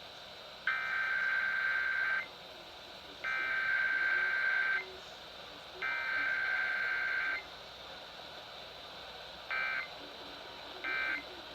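Emergency Alert System SAME digital header for a Required Weekly Test: three bursts of data tones, each about a second and a half long and a second apart. Near the end come two short end-of-message data bursts.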